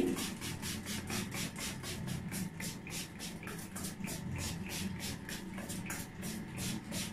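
Fine-mist pump spray bottle of rose water pumped rapidly, with short hissing sprays at about four a second, misting onto a face.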